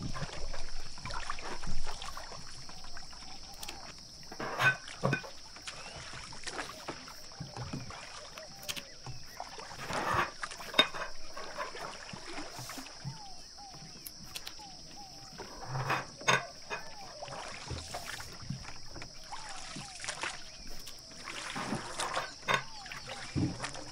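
Long thin wooden rolling pin (oklava) rolling out a sheet of starch-dusted yufka dough on a wooden board: a rustling stroke every few seconds, with light clicks and taps of the pin on the board.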